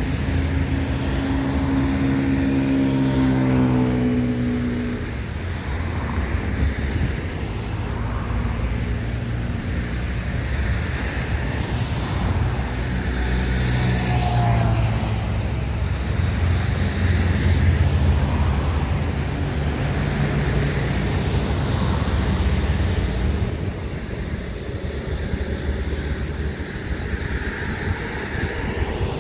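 Road traffic: motor vehicle engines running and passing by, a low engine drone that swells and fades several times and eases off near the end.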